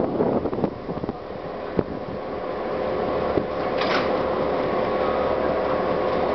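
Railway turntable slowly turning with a diesel locomotive on it: a steady mechanical hum with a faint held tone that grows louder after the first second, and a short hiss about four seconds in.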